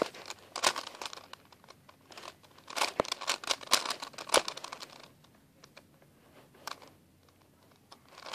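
Plastic layers of a 4x4 Rubik's cube being turned, quick runs of clicks and scrapes as a corner-swapping algorithm is carried out. It goes almost quiet for the last few seconds, apart from one click.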